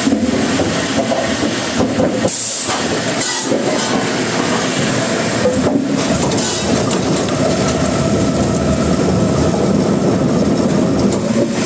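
Wood-processing machinery running: a loud, steady mechanical clatter and rumble, with brief dips about two and three seconds in.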